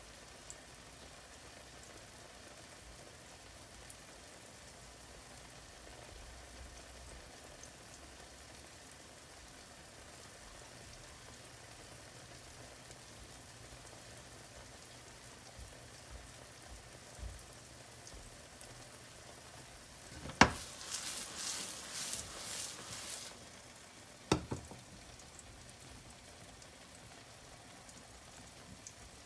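Egg pancake with onion and bell pepper frying in a nonstick pan, a faint steady sizzle. About two-thirds of the way through comes a sharp clunk as the pan is shifted on the induction hob, then a few seconds of louder crackling sizzle, then another clunk.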